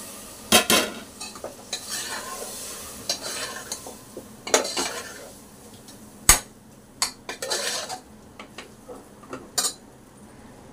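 A metal spoon stirring and scraping masala in a pressure cooker, with irregular sharp clanks of metal on the pot, the loudest about six seconds in. Onion-tomato masala sizzles in oil underneath, most plainly in the first few seconds.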